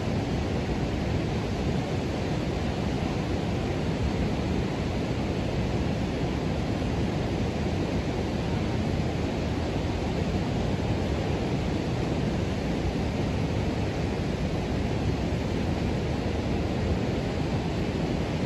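Steady rush of Kootenai Falls, a large waterfall and river rapids in full spate.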